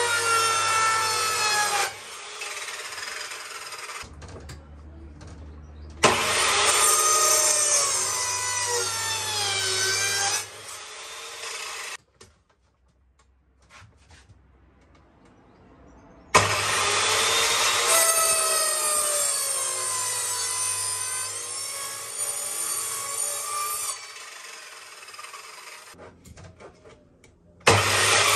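Electric mitre saw cutting pallet wood: the motor starts suddenly, its whine bends and dips as the blade goes through the board, then it winds down. This happens four times: one cut already under way, then new starts about six seconds in, in the middle, and near the end, with a near-quiet pause before the middle cut.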